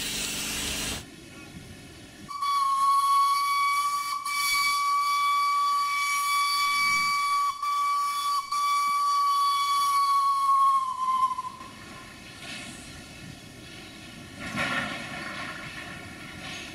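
Steam hissing that stops about a second in, then one long, high steam-whistle blast of about nine seconds, steady in pitch until it sags and dies away. A little more steam hiss follows near the end.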